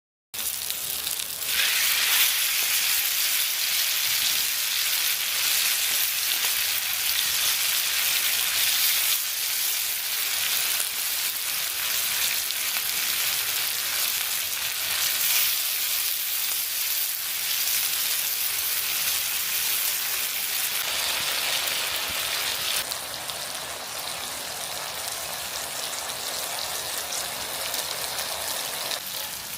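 Beef small intestines (sogopchang) sizzling loudly on a hot grill pan, a dense steady crackling hiss that starts suddenly and turns softer about three-quarters of the way through.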